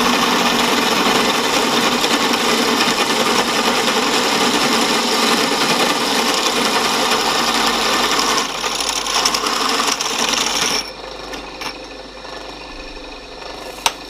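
Hole saw in a milling-machine spindle cutting the feeder off an aluminium casting, lubricated with WD-40: a loud, steady grinding cut that eases a little after about eight and a half seconds and stops about eleven seconds in. A few sharp clicks follow near the end.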